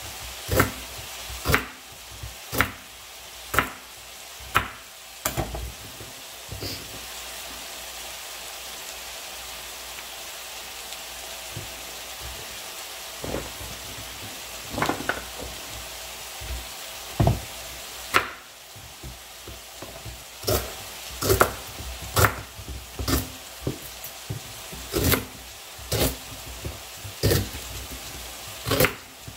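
Chef's knife chopping moringa (drumstick) pods on a bamboo cutting board: sharp knocks about once a second, stopping for several seconds in the middle, then resuming. A steady sizzle from onions sautéing in a pan runs underneath.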